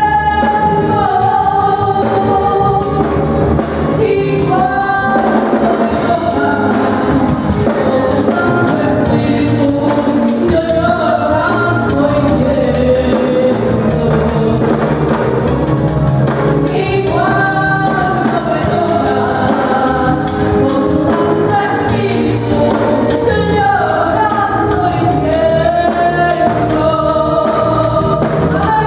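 A woman singing a worship song into a handheld microphone, with musical accompaniment underneath.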